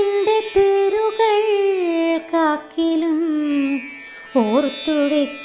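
A woman singing a Malayalam poem in Carnatic style, drawing out long held notes with ornamented bends, with a quick swooping turn about four seconds in.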